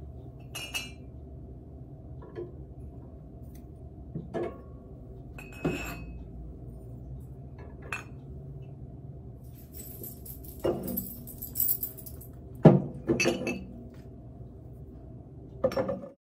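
Coffee mugs clinking as they are set down one by one onto a wire shelf rack inside a wooden cabinet: about ten sharp, irregular knocks and clinks, the loudest about three quarters of the way through, over a steady low hum.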